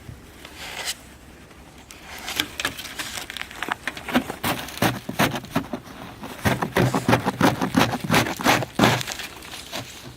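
Ice-crusted snow crunching and scraping in a quick, irregular run of strokes that starts about two seconds in, grows louder and stops about nine seconds in.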